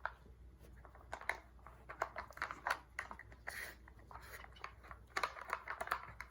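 Dogs nosing and pawing at a plastic puzzle feeder toy: a string of short, irregular clicks, taps and scrapes as its lids and pieces shift.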